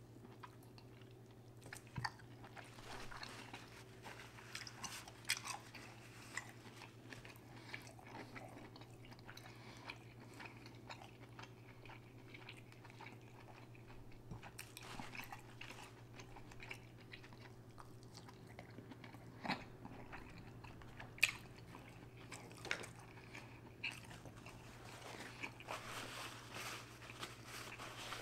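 A person chewing and biting into seafood boil food, with irregular wet crunches and sharp clicks scattered throughout and a few louder snaps in the second half. A faint steady low hum sits underneath.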